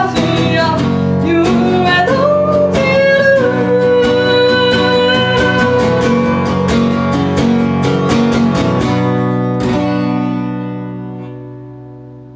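Acoustic guitar strummed in a steady rhythm under a woman's singing voice, ending the song with a last strum about ten seconds in that rings on and fades away.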